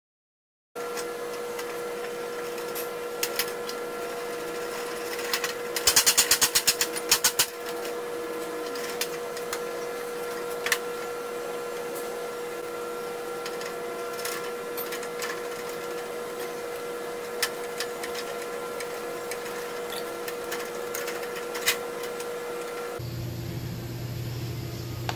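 Workshop sounds of hand-tool work on a vine trimmer: a steady machine hum with scattered metallic clinks and knocks, and a quick run of rapid clicking about six seconds in. A lower hum joins near the end.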